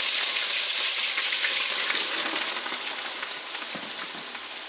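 Chunks of raw pork pluck (lung, heart, windpipe, spleen) sizzling and crackling in hot lard and olive oil as they start to brown over a high flame. The sizzle is loud at first and gradually dies down.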